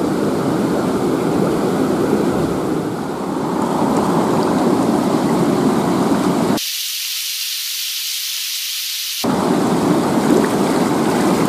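River water running over rocks, a steady rushing noise. About seven seconds in, the deeper part of the sound cuts out abruptly for about two and a half seconds, leaving only a thin high hiss, then comes back.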